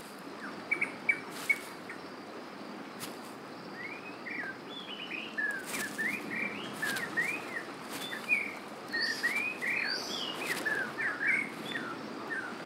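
Forest ambience from the film soundtrack: many short chirping bird calls, thickening from about four seconds in, over a steady hiss. Three sharp clicks come within the first second and a half.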